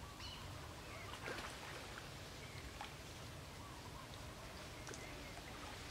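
Faint outdoor ambience by a pond: light splashing of monkeys swimming, with a few short high chirps scattered through it.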